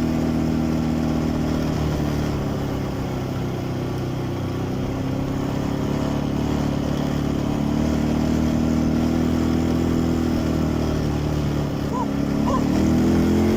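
Quad bike (ATV) engine running steadily while riding. Its pitch drifts a little in the middle and rises near the end as the throttle opens.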